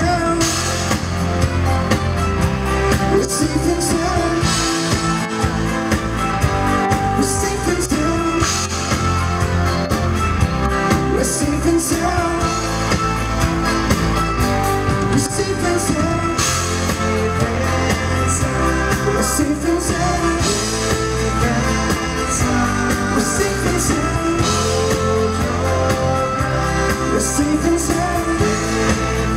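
Live rock band playing: electric guitars, bass, keyboards and a drum kit with a steady beat, with a male lead singer.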